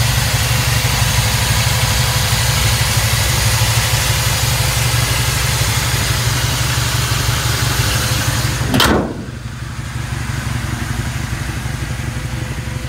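1956 Chevy pickup's V8, which the seller believes is a Chevy 350, idling steadily. About nine seconds in the hood slams shut with a single sharp bang, and the idle carries on more muffled under the closed hood.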